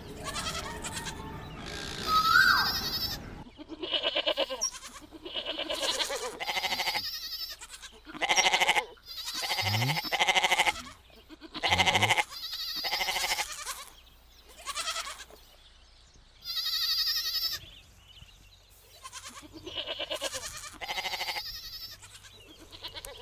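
Young goat kid bleating over and over, a string of separate wavering cries about a second apart, spaced more widely in the second half.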